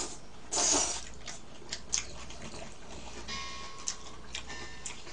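Eating sounds: a short slurp of jajang noodles about half a second in, and scattered light clicks of chopsticks against bowls.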